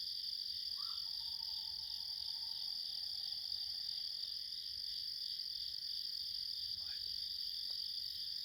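A continuous high-pitched trilling animal chorus. A faint, thin whistled note starts about a second in and slowly sinks over about three seconds, and a short rising sweep comes near seven seconds.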